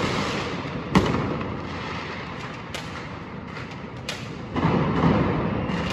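Fireworks going off: a sharp bang about a second in, a few scattered cracks, then a louder rumble of bursts from about four and a half seconds.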